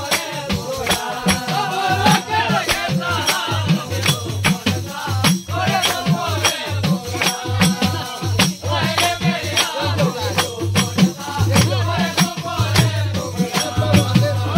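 Pahari folk mehfil music: a singing voice over a fast, steady percussion beat with a jingling, rattle-like shimmer.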